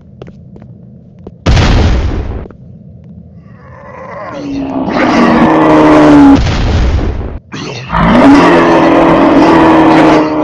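A sudden loud boom about a second and a half in. Then comes loud, distorted noise carrying a steady pitched tone, which swells up, breaks off briefly and comes back.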